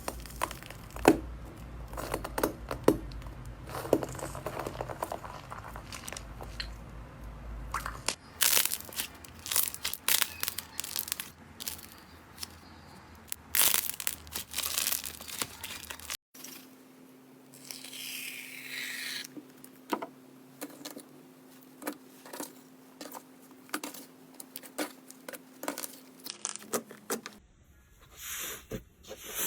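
Slime being squeezed, stretched and poked by hand over several short clips, giving a string of short, sharp crackles and sticky pops. The background changes at each cut.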